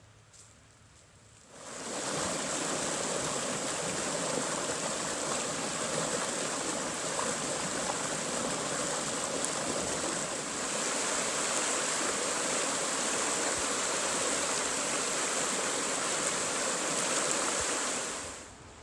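River water rushing over limestone ledges in a small cascade: a steady, loud rush that comes in about two seconds in and fades out near the end.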